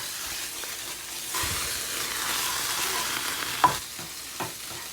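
Chicken and shrimp in cocktail sauce sizzling in a frying pan, with a few sharp clicks in the second half.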